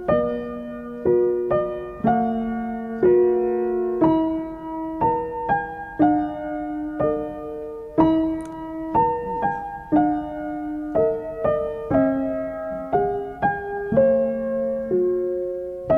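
Gentle piano background music: a slow melody of single struck notes over soft chords, with a fresh note or chord about every half second to second.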